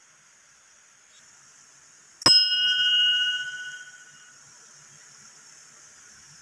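Hanging temple bell struck once about two seconds in, ringing with several clear tones that fade away over about two seconds.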